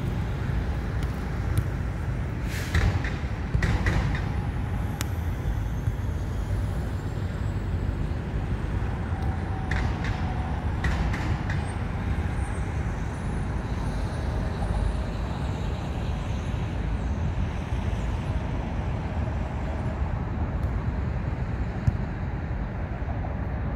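Steady traffic rumble from the road and the highway overhead, with a truck passing along the road. A few short sharp knocks stand out, the loudest about three to four seconds in.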